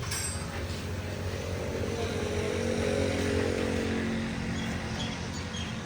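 Honda CG125 motorcycle's single-cylinder four-stroke engine running, swelling briefly in level about halfway through and then settling back.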